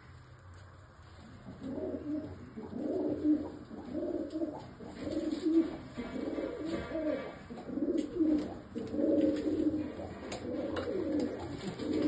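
Domestic pigeons cooing, a steady run of low warbling coos from several birds overlapping, starting about a second and a half in.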